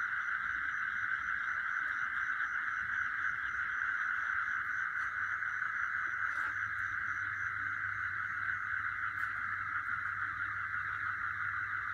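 Night insect chorus: a dense, steady chorus of calling insects, with a fainter, higher chirp repeating about four times a second that stops about two-thirds of the way through.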